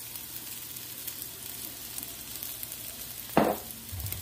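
Sliced red onion, garlic and ginger sizzling in oil in a nonstick pan, a steady frying hiss. One short knock cuts through a little over three seconds in.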